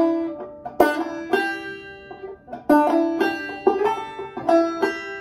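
Open-back banjo played clawhammer style, a short lick picked out slowly note by note with a brief pause midway. It is the player's own way of the phrase, skipping the strike on the drop thumb.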